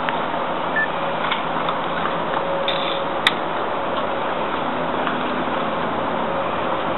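Steady outdoor background noise with a few light clicks, one sharper about three seconds in, from the metal snaps and buckles of a horse's harness as the reins are hooked up.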